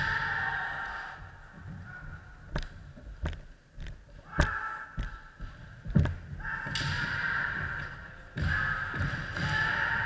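Kendo sparring: long held kiai shouts from the fighters, with sharp cracks and thuds of bamboo shinai strikes and stamping feet on a wooden floor. The sound carries the echo of a large hall.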